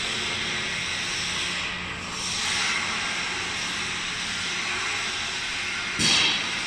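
CNC glass cutting machine running with a steady hiss and a faint hum. About six seconds in, a sudden sharp clatter rings out.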